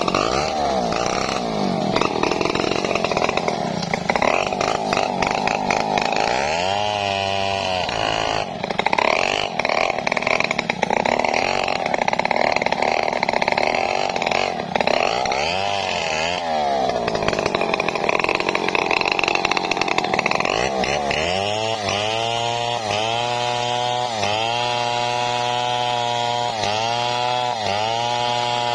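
Stihl two-stroke chainsaw at high revs cutting through logs. The engine note sags and climbs back twice under load, then settles into a steady high pitch with regular dips about once a second near the end.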